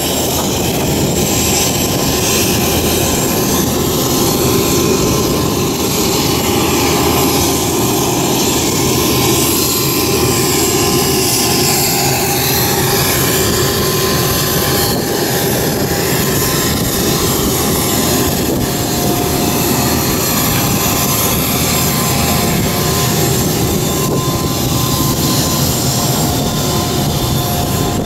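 Steady, loud turbine whine and rumble from a parked Dash 8 Q300 (DHC-8-315Q) turboprop airliner, with a few constant high tones over a dense noise.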